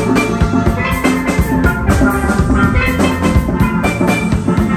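Live steel band: several steel pans playing a bright melody and chords over a drum kit keeping a steady beat.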